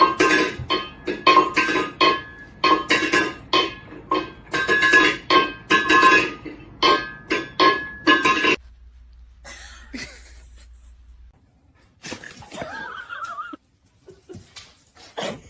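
Music in short, repeated stabs on the same few notes for about the first eight and a half seconds, then much quieter with a few faint scattered sounds.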